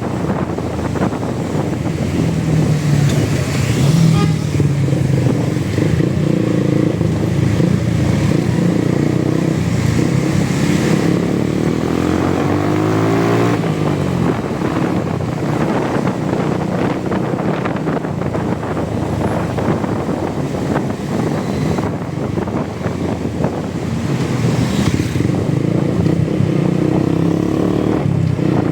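Motorcycle engine running steadily under way, its pitch rising and falling with the throttle, with a climb in revs about halfway through.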